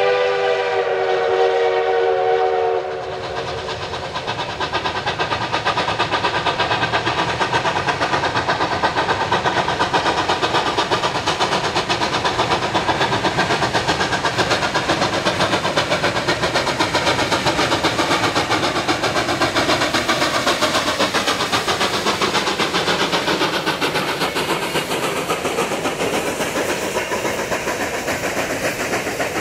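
Steam locomotive whistle blowing a long blast that cuts off about three seconds in, as the engine nears a grade crossing. The narrow-gauge steam locomotive then works past with fast, steady exhaust chuffs, followed by its passenger coaches rolling by on the rails.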